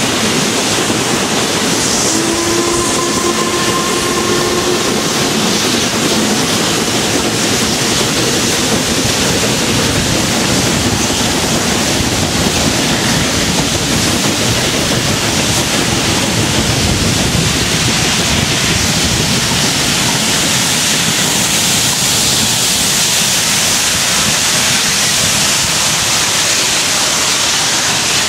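Four saddle-tank steam locomotives working hard at the head of a train, their exhausts blurring into one continuous, loud thrash together with the running noise of the coaches, heard from a carriage window.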